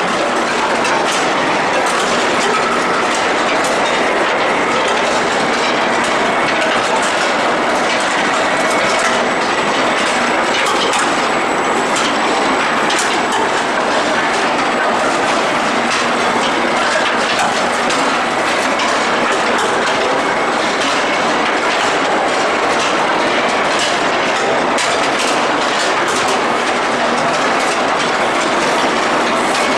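Steel ball hot-rolling machinery running: a loud, steady mechanical din with continuous metallic clicking and clatter.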